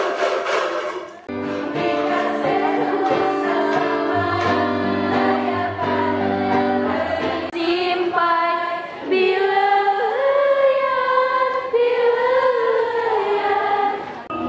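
Women's choir singing held chords, with a few hand claps in the first second; from about eight seconds in the sung notes waver and glide.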